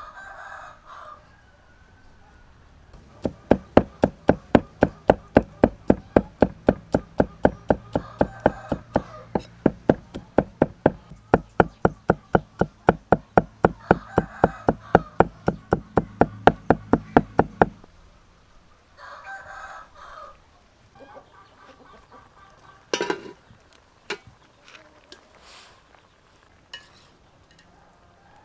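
Cleaver mincing garlic on a wooden chopping block: fast, even chopping at about four strokes a second for some fifteen seconds, then it stops and a few scattered knocks follow. A rooster crows several times in the background.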